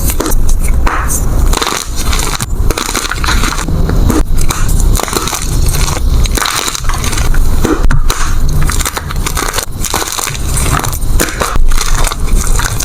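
Gym chalk being crushed, a loud crispy crunching and crumbling that comes in irregular squeezes with brief pauses between them.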